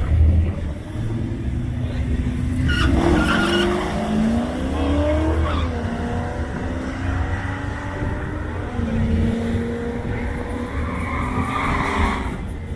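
Mercury Grand Marquis V8 drag car launching from the start line and accelerating down the strip. The revs climb, drop back at an upshift about halfway through and climb again, and the sound eases off near the end as the car pulls away.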